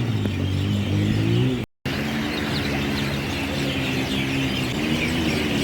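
Motorcycle engine running steadily, its pitch rising and falling a little. The sound cuts out for a moment about two seconds in.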